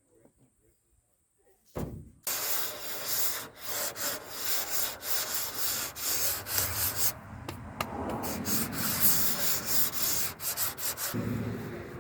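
Sandpaper worked by hand over the old paint on a steel truck body panel, a rasping rub in quick back-and-forth strokes that starts about two seconds in.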